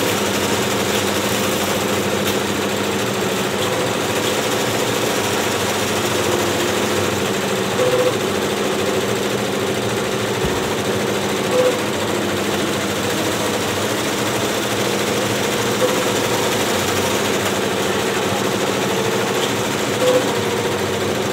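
Several multi-needle commercial embroidery machines stitching together: a steady mechanical clatter and hum, with a short louder blip roughly every four seconds.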